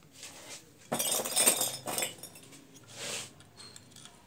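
Plastic LED bulb housings and parts being handled on a workbench: a scratchy clatter of about a second, then a shorter one.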